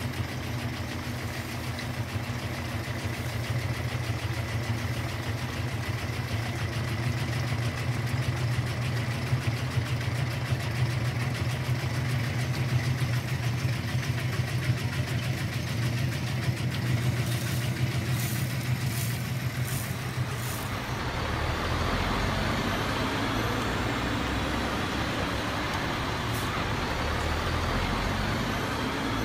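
Truck engine sound running steadily from a toy RC cement mixer truck. About twenty seconds in it gives way to a different truck engine sound.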